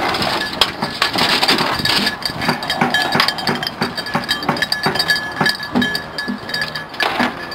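Small bells on beagles' hunting collars jingling and clinking irregularly as the dogs move and the collars are handled, with short ringing tones.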